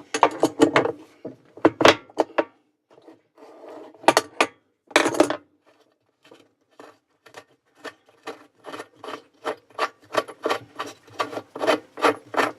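Metal tool work on the washing machine's tub nut: scrapes and sharp clicks of an adjustable wrench on the nut, turning into a quick run of short clicks in the last few seconds.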